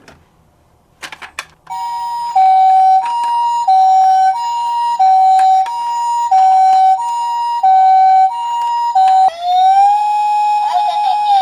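Toy ambulance's electronic siren. After a few clicks it sounds the Japanese-style two-tone "pee-po" hi-lo siren, alternating high and low about every two-thirds of a second. Near the end it switches to a wail that rises and holds.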